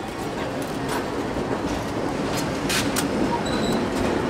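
Passenger train cars rolling past at close range with a steady rumble. A few sharp clicks of wheels over the rail joints come about two and a half seconds in, and the sound grows louder toward the end as the trailing diesel units come alongside.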